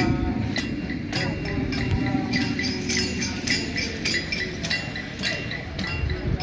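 Live acoustic Christmas music: guitars strumming, with a jingling hand percussion instrument struck about twice a second to keep the beat.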